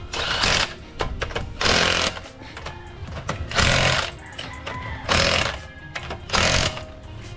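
Cordless impact wrench running the wheel lug nuts onto a refitted car wheel in short hammering bursts, five in all, each about half a second long. Background music plays underneath.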